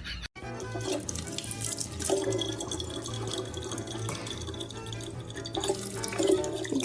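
Water running and splashing, as from a tap, with music under it.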